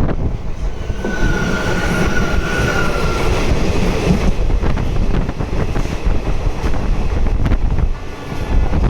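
Train led by a WAG-12 electric locomotive running past on the rails: a steady rumble of wheels with repeated rail clicks. A thin high squeal is held for about two and a half seconds starting about a second in.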